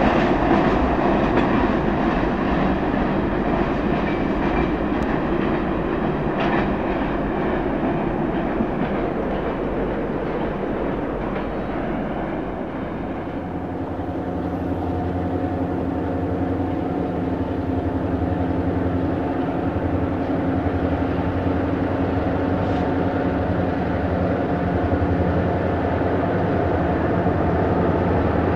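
Freight cars, covered hoppers and tank cars, rolling past on steel wheels with a clickety-clack over the rail, their rumble fading as the train pulls away. After about 13 seconds it gives way to a steady low drone holding a few level tones.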